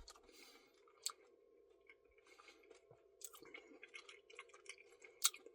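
Faint chewing and mouth sounds of someone eating a Blizzard of ice cream with Reese's Pieces and cookie dough. Scattered soft clicks, one about a second in and more from about three seconds in.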